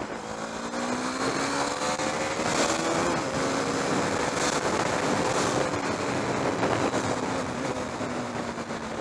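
KTM Duke 390's 373 cc single-cylinder engine pulling under acceleration, its pitch rising over the first two or three seconds and then holding steady, with wind rushing past.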